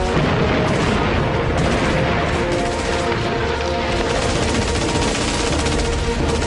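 Sustained, dense gunfire: many rapid automatic and rifle shots overlapping without a break, the sound of a firefight.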